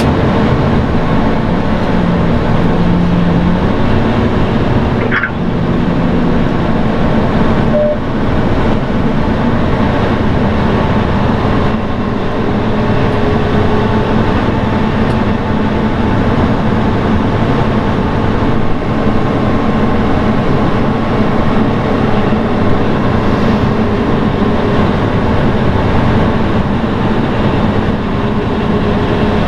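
Aircraft pushback tug running steadily under load as it pushes the airliner back, a loud even drone with faint steady tones. There is a brief click about five seconds in.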